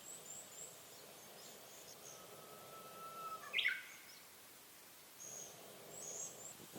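Forest birds singing: faint high chirps, and one bird with a held whistled note that breaks into a short, louder phrase about halfway through, over a faint background hiss.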